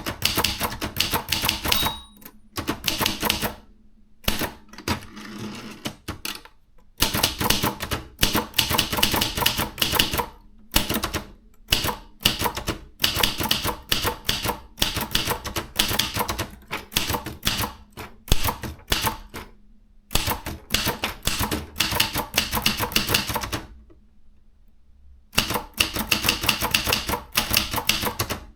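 Maritsa 30 hyperportable typewriter being typed on: fast runs of key strikes broken by several short pauses.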